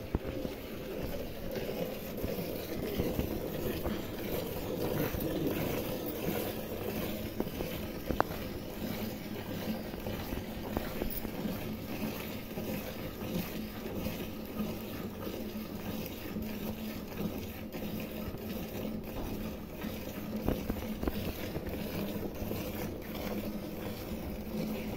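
Cow being milked by hand: repeated streams of milk squirting from the teats into a steel bucket of frothy milk, over a steady low hum.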